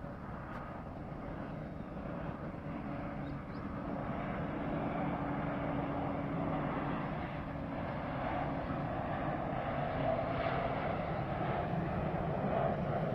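An airliner's engines near the runway: a steady rumble that grows slowly louder as the plane comes closer.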